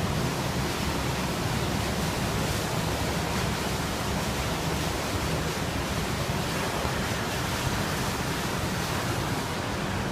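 Floodwater rushing and pouring in a steady, loud stream, like a small river.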